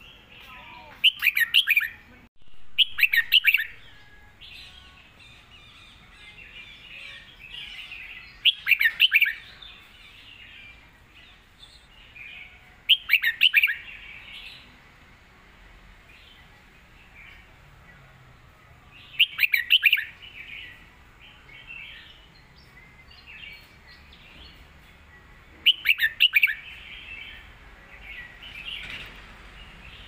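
Caged red-whiskered bulbul singing: six loud, clear whistled song phrases a few seconds apart, with soft twittering in between. It sings the clear doubled phrases ('เบิ้ล') prized by Thai bulbul keepers.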